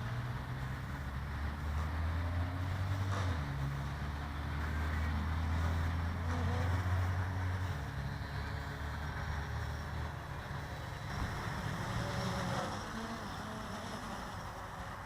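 Blade 350 QX quadcopter in flight: motors and propellers whirring steadily, their pitch stepping as the throttle changes, mixed with wind noise.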